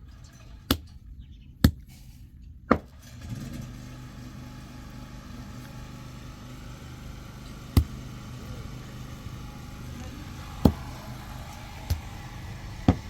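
Several sharp knocks, one to three seconds apart, over an engine that starts up about three seconds in and then idles steadily.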